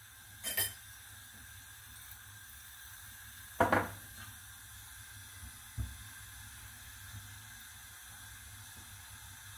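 Kalonji (nigella) seeds frying in hot oil in a pan, a steady soft sizzle. Two brief sharp sounds break in, one about half a second in and a louder one near four seconds, with a low thump near six seconds.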